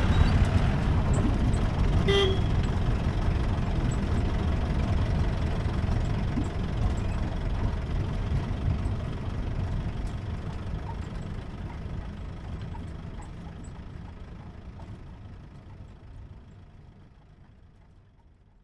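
Jeep running on the road, with engine and road rumble, and a short horn toot about two seconds in. The whole sound fades out gradually to silence.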